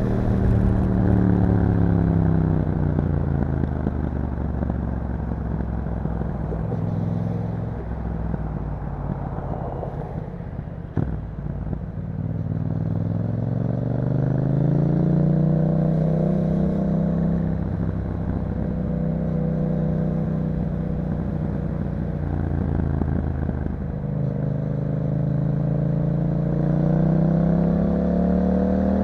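2021 Yamaha MT-07's parallel-twin engine on the move through an Akrapovic exhaust: the revs fall off, stay low for several seconds, then climb and hold, ease briefly and climb again before dropping sharply at the end. A short sharp click comes about eleven seconds in.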